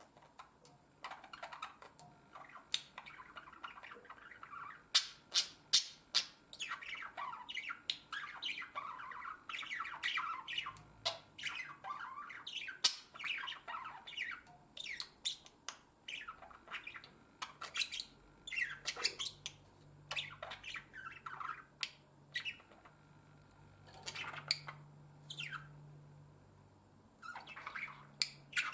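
Budgerigar warbling song: a fast, continuous chatter of chirps, clicks and harsh squawks, with several sharp loud calls in the first quarter. It is the male's courtship song to his mate.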